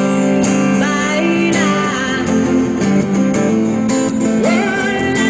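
Acoustic guitar strummed steadily, with a woman singing a melody over it.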